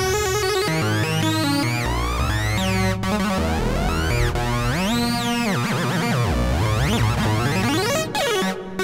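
Homemade analogue synthesizer prototype played from a keyboard: quick runs of electronic notes with pitch sweeps rising and falling, a big swoop down and back up in the middle, and a short dip in loudness near the end.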